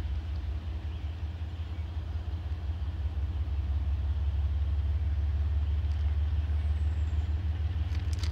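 Diesel locomotives of an approaching freight train, a steady low rumble that grows a little louder after about three seconds.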